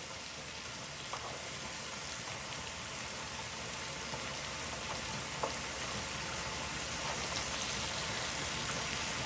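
Potatoes with onions and red peppers frying in oil in a pan: a steady sizzle with scattered small crackles, growing slightly louder.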